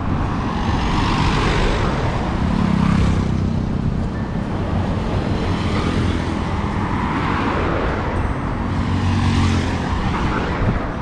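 Road traffic going by, with two vehicles swelling past, one about two seconds in and one near the end.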